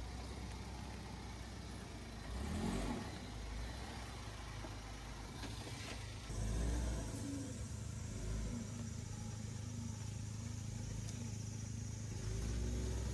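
Suzuki Jimny 4x4's engine running as it drives off-road through brush, its rumble rising in louder surges about two and a half and seven seconds in and again near the end.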